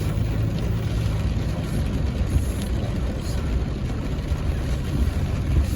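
Car engine and road noise at low speed: a steady low rumble while the car is manoeuvred into a tight parking space.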